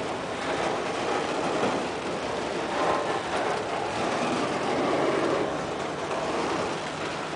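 Freight train of enclosed autorack cars rolling past close by: a steady rolling rumble of steel wheels on rail.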